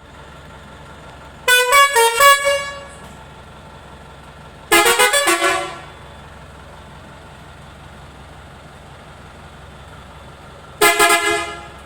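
Multi-tone musical air horn sounding three short bursts, each about a second long, its notes stepping quickly from one pitch to the next. A steady low engine idle hums underneath.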